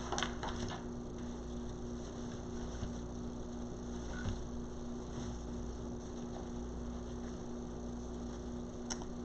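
A steady hum with two held tones, and a few faint clicks, about half a second in and again around four seconds in.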